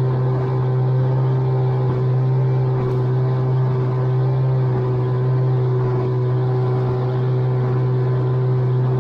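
Outboard motor of a small inflatable motorboat running under way at a steady pitch, heard from aboard, over a constant rushing noise as the boat runs through waves.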